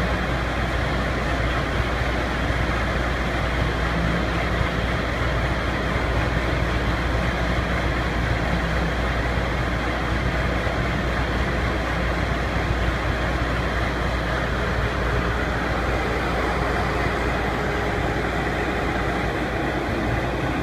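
Rotary pile-driving rig's engine running steadily under load, an even, unbroken mechanical noise.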